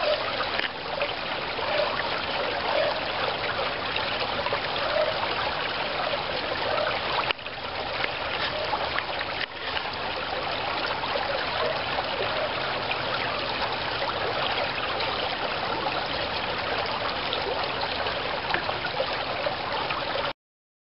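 Water of a partly frozen creek running and trickling past shelf ice, a steady rushing. It cuts off abruptly near the end.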